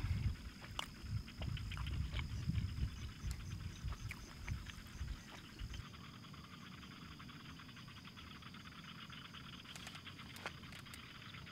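Evening insect chorus: a steady high trill with a faster, pulsing chirp above it. Under it, a low rumble and scattered small clicks drop away about halfway through.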